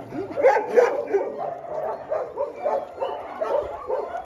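A pack of dogs yipping and whining while clamouring for food at feeding time, many short high calls overlapping one after another.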